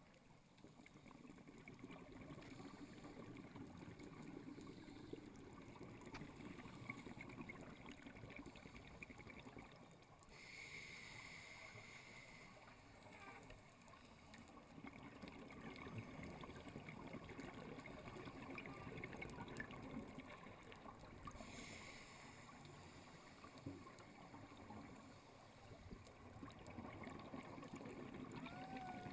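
Faint underwater ambience with a constant fine crackle, and a scuba diver's regulator breathing: a gurgle of exhaled bubbles, then a short hiss of breathing in about ten seconds in and again about 22 seconds in.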